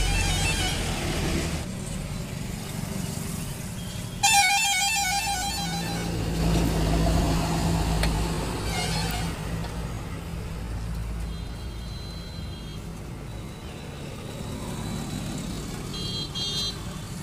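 Road traffic running close by, engines rumbling steadily. A vehicle horn sounds at the start and again, loudest, about four seconds in for nearly two seconds, with short high toots later on.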